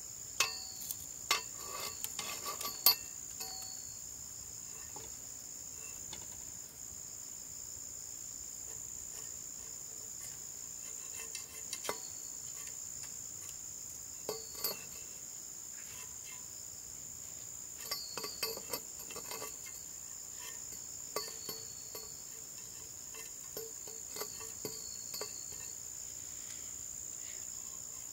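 Steady high-pitched chirring of insects, with short clinks and knocks: a cluster in the first few seconds, then more in small groups every few seconds.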